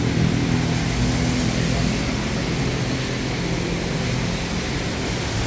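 A vehicle engine running steadily with a low, even hum, under a steady hiss.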